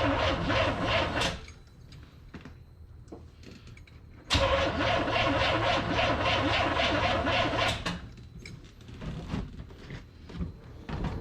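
Carbureted Corvette engine cranked on its starter in two bursts of about three seconds each, the first ending about a second in and the second starting about four seconds in, with a fast, even pulsing as it turns over without catching. A no-start that the owner puts down to a fuel supply problem at the carburetor. Between and after the bursts there are a few light knocks.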